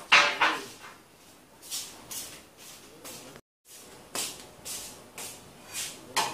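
A dozen or so short knocks and scuffs of a girl walking with a plate of steel bowls and setting it down on a table. The sound cuts out briefly about halfway through.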